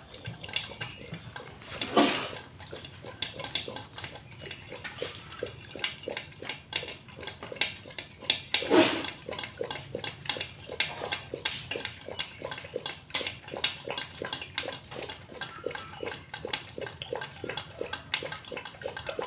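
Pitbull lapping liquid from a metal cooking pot, a steady rhythm of about three laps a second, with two louder noises about two and nine seconds in.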